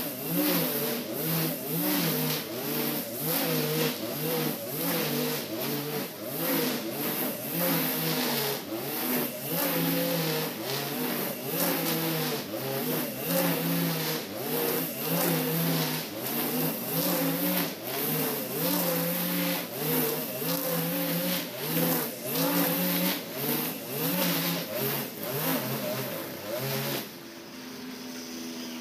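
Husqvarna 542RBS 42cc two-stroke backpack brush cutter running at high throttle, its 2.4 mm nylon line cutting thick tall grass, the engine pitch dipping and rising over and over. Near the end the engine drops to a steady idle.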